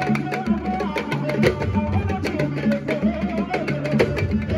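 Music with fast drumming over a repeating bass line and a wavering melody.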